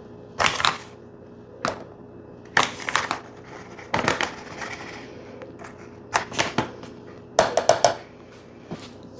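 A measuring spoon clicking and scraping against a container in about six short bursts of rapid clicks, as oat flour is scooped and added to the batter.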